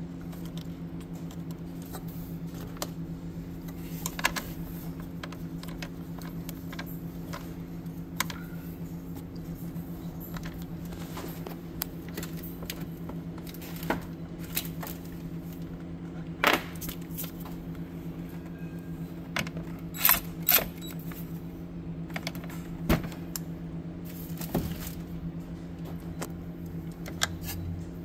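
Occasional light metallic clicks and taps of tools and parts being handled at the fuse box, a few seconds apart, over a steady low hum.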